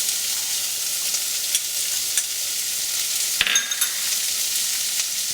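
Diced onion, ginger and garlic sizzling in hot oil in a pan: a steady crackling hiss. A utensil clatters briefly against the pan about three and a half seconds in.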